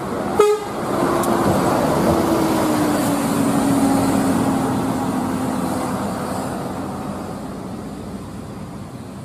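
A coach bus driving past, its engine and tyre noise swelling and then fading as it goes away, with the engine tone sliding slowly lower. A short, sharp blip about half a second in.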